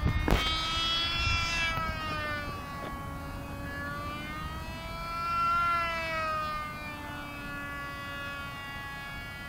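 Cox Tee Dee .020, a tiny two-stroke glow engine, running flat out in a small model biplane in flight: a thin, high whine that rises and falls in pitch as the plane flies by. It is loudest and highest about five and a half seconds in, then drops away. A brief thump hits the microphone at the very start.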